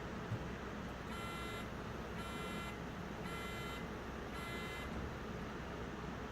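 Electronic beeper of a Besam RD4 security revolving door's control unit sounding four short, even beeps, about one a second.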